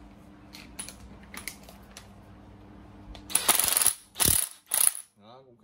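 Gear mechanism of a 12 V National cordless driver ratcheting: a few light clicks, then three short, loud bursts of ratcheting gear noise in the last couple of seconds.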